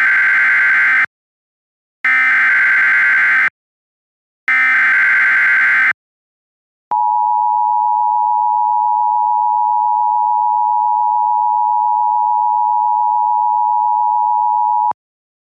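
Emergency Alert System tones: three short bursts of buzzing SAME header data, each about a second and a half long, then the steady two-tone attention signal held for about eight seconds and cut off. This is the header that opens an emergency alert, here a severe thunderstorm warning.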